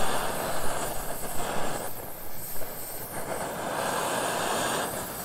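LPG camping burner running under a titanium pot of water that is coming up to the boil: a continuous hissing rumble that rises and falls unevenly in loudness.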